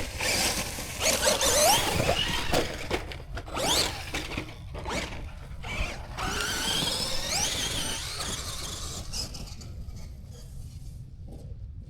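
Electric motor of a Traxxas Maxx RC monster truck whining as it is throttled up and down, its pitch sweeping up and falling back several times, with a few sharp knocks from the truck hitting the ground. The sound gets fainter after about nine seconds.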